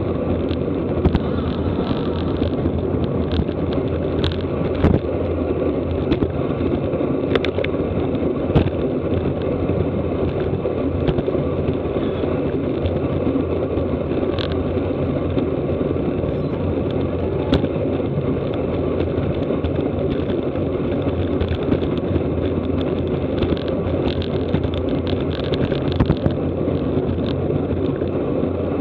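Steady rush of wind over the microphone of a camera riding on a racing bicycle at race pace, with a few sharp clicks.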